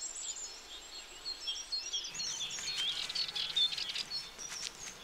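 Small birds chirping and calling, several at once, with short overlapping chirps and warbles that grow busier about two seconds in. A thin, steady high tone fades out early on, and a few sharp clicks sound in the second half.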